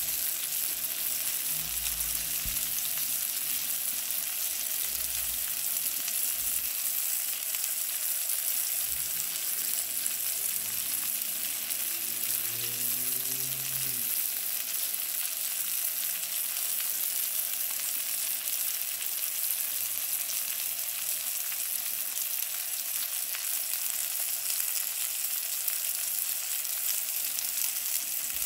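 King mackerel (tanigue) steaks frying in butter in a nonstick pan: a steady sizzle.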